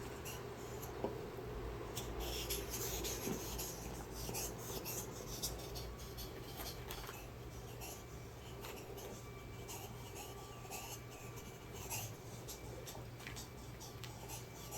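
Faint scratching and rubbing with scattered soft clicks, over a steady low hum.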